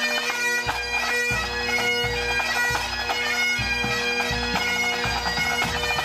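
Pipe band playing: Great Highland bagpipes sound a melody over steady drones, with snare drums rattling and a bass drum beating underneath.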